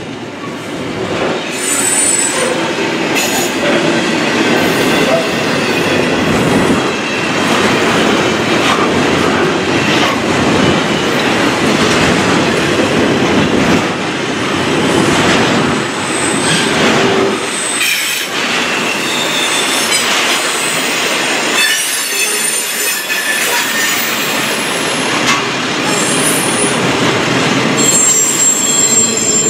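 Double-stack intermodal container cars of a freight train rolling past steadily, wheels clicking over the rails, with short high-pitched wheel squeals coming and going every few seconds.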